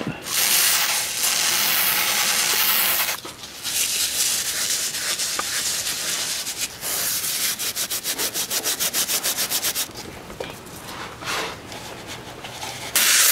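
Aerosol carbon cleaner sprayed through its straw into a cylinder with a steady hiss for about three seconds. Then a Scotch-Brite pad scrubs carbon off the straight-six's piston tops in quick, even back-and-forth strokes, and another hiss of spray starts near the end.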